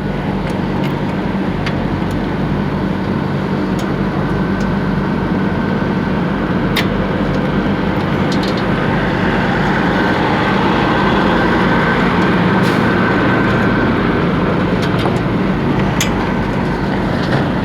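Steady drone of a running diesel engine, with a few light clicks and knocks over it.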